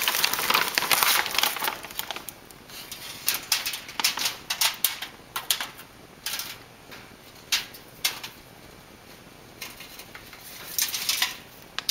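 A plastic bag of shredded mozzarella rustles loudly for the first couple of seconds. Then come irregular crinkles and clicks from the bag and the aluminium foil as the cheese is sprinkled by hand onto bread dough.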